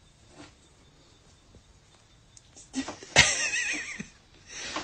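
Cat giving a sudden loud, wavering cry about three seconds in, lasting about a second, with fainter rustling before and after.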